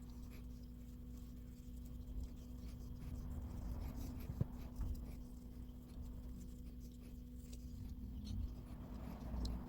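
Light scratching and small clicks from hand work on a diecast toy car, over a steady low hum. One sharper tap comes about four and a half seconds in.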